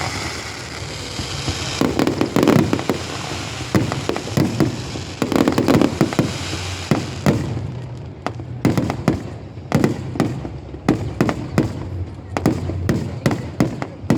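Aerial fireworks bursting in quick succession: dense crackling with a high hiss for about the first seven seconds, then a run of separate sharp bangs.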